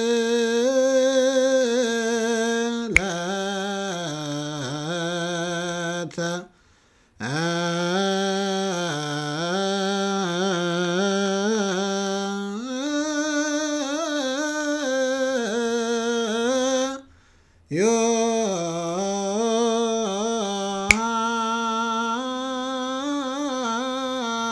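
A man chanting Ethiopian Orthodox liturgical hymn verses in Ge'ez (zema) solo, drawing out long, ornamented notes that waver and slide in pitch. He breaks off twice for breath, about six and seventeen seconds in.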